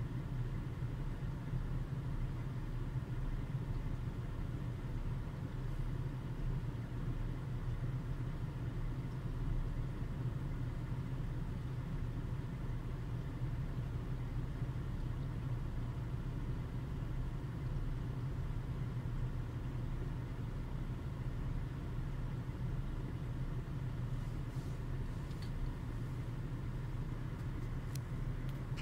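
Steady low drone inside a car's cabin while the car sits stopped with its engine idling.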